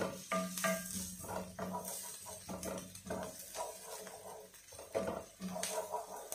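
Wooden spatula stirring chopped onion and garlic in a stone-coated wok: a run of short scrapes and knocks of wood on the pan, one every half second or so.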